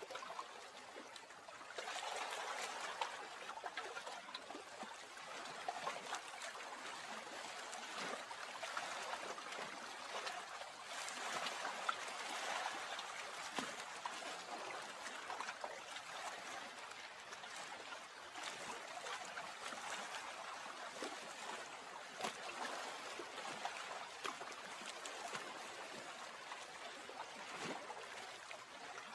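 Lake water trickling and lapping gently in a steady wash of small splashes, a little louder from about two seconds in.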